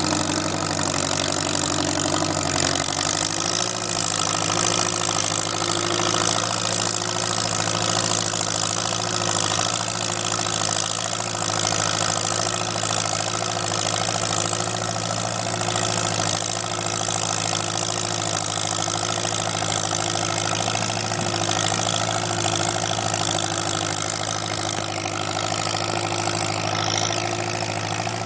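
Farmall H tractor's four-cylinder engine running steadily under load, pulling a plow through sod. The sound eases slightly near the end as the tractor moves away.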